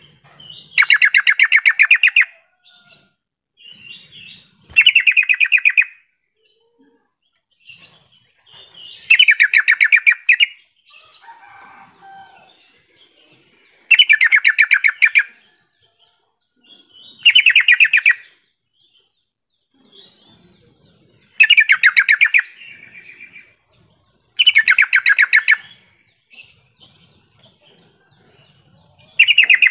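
Yellow-vented bulbul (trucukan) calling: loud phrases of rapid bubbly notes, each about a second and a half long, repeated every three to four seconds, with a few soft notes in the gaps between them.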